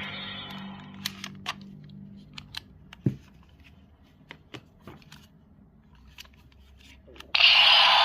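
Plastic clicks and snaps from a third-party Hyper Zecter toy being handled and its parts worked, then about seven seconds in a sudden loud hissing burst from its sound-effect speaker.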